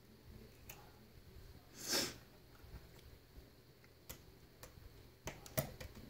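Small scattered clicks and taps of a plastic pry tool against an iPhone 6's metal frame and battery as it is levered under the glued-in battery, with a cluster of clicks near the end. About two seconds in there is one short breathy rush.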